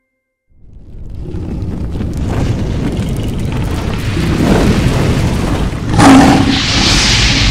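Logo-animation sound effect: a deep, rumbling boom-and-fire noise swells in out of silence about half a second in. It hits a loud burst about six seconds in.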